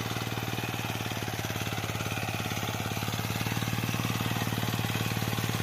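Small engine of a walk-behind mini tiller running steadily with a rapid, even chugging while its rotary tines work the soil between maize rows. It grows a little louder about halfway through.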